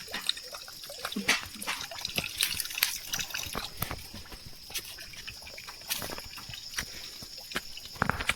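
Water dripping in irregular drops and trickles, with scattered taps and clicks.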